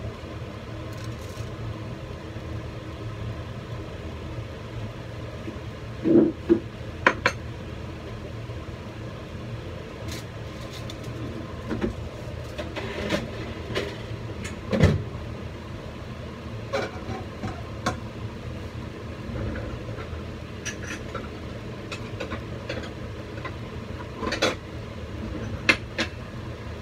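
Kitchen clatter: scattered knocks and clinks of dishes and utensils being handled, over a steady low hum.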